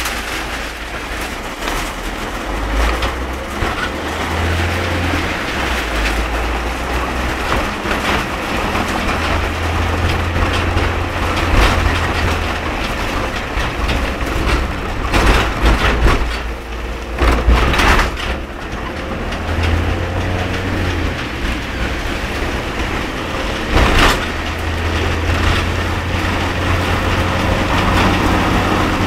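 Heavy rain pouring on a moving car, over a steady low engine and road rumble that rises and falls. There are a few louder rushes of noise, mostly in the second half.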